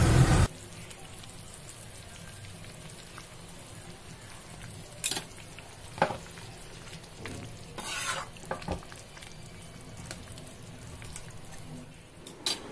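Soybean-chunk and potato curry bubbling and sizzling in a pan, with a few sharp scrapes and clinks of a metal ladle stirring it around five, six and eight seconds in. A louder rush of noise cuts off abruptly about half a second in.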